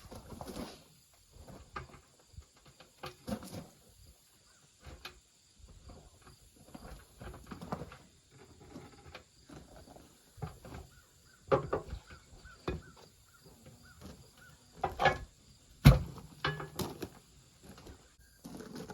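Irregular knocks, scrapes and clanks of hand tools working a tire off its wheel rim, with a few sharp strikes in the second half, the loudest near the end.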